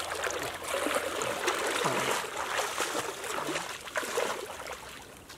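Shallow water splashing and sloshing as a man wades through it and sweeps a woven bamboo basket through it to scoop up a fish, easing off near the end.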